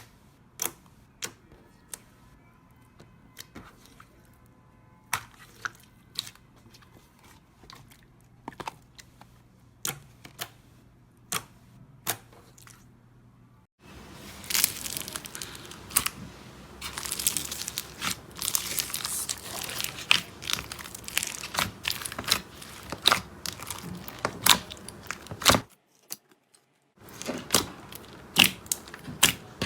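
Slime being handled by hand: scattered sharp clicks and pops for the first half, then, after a sudden change, a dense run of crackling and popping that stops briefly near the end before the clicks start again.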